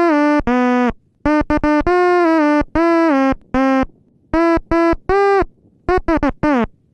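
Synthesizer melody of separate held notes, phrased in short groups with brief silent gaps between them.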